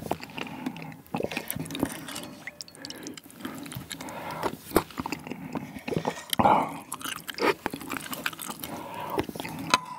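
Close-miked eating of ramen: noodles and broth slurped from a spoon and chewed, in a string of irregular wet slurps and mouth clicks, with one louder slurp about six and a half seconds in.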